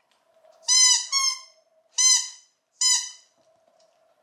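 Squeaky banana dog toy squeaking four times as it is bitten and squeezed: two squeaks close together about a second in, then one more at about two seconds and another near three seconds. Each squeak is short and high-pitched.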